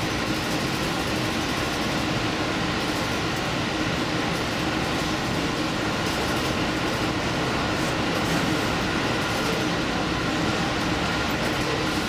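Diesel limited express train running along the line: a steady rumble of engine and wheels on rail with a few constant tones, and no single clicks or thumps standing out.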